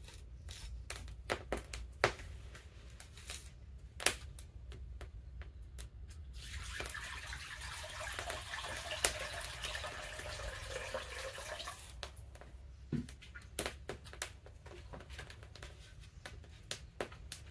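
Water being poured into a vessel for about five seconds in the middle, among scattered sharp clicks and taps of kitchen work.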